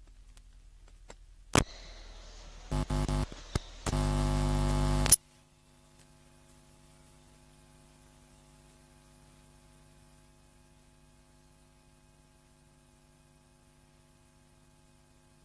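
Electrical buzz on the audio line: a click, a few short bursts of loud buzz, then about a second of steady buzz that cuts off suddenly, leaving a faint steady mains hum.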